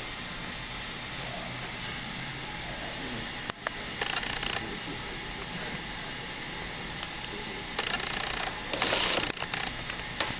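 Steady hiss of recording noise, with a sharp click about three and a half seconds in and two short bursts of rustling noise, one near the middle and a louder one near the end.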